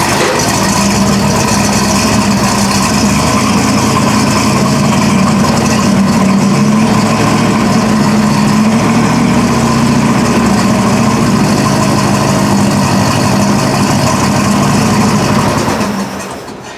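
Buick 322 Nailhead V8 running steadily, loud, just after catching on the starter. About sixteen seconds in it is shut off and the sound dies away.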